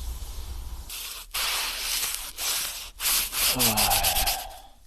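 Rustling and rubbing noises in several bursts, each about a second long, like fabric or gear being handled and moved.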